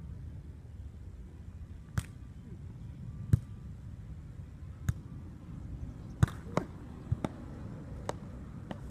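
A volleyball being struck by hands and forearms during a rally: about eight sharp slaps at irregular intervals of one to one and a half seconds, over a steady low rumble.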